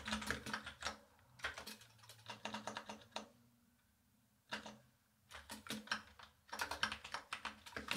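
Typing on a computer keyboard: runs of rapid keystrokes in short bursts, with a pause of about a second in the middle.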